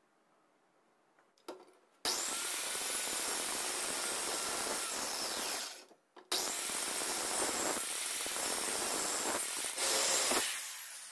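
A power tool running in two long bursts of about four seconds each, with a short break between them; after the second burst it winds down, fading over a second or so.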